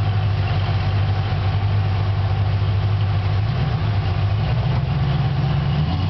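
Off-road vehicle engine running steadily at low revs while crawling over rocks. The revs rise a little about three and a half seconds in and drop back near the end.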